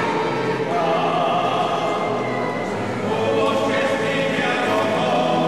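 Choir singing a hymn in long held notes.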